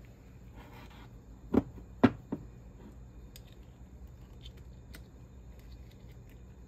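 Three knocks of a metal hydraulic steering-cylinder gland being handled on a workbench, the loudest about two seconds in, followed by faint light clicks of a seal pick working at the gland while its old seals are removed.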